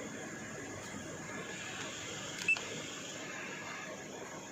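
A single short electronic beep from an OBD scan tool's keypad about halfway through, over a steady background noise.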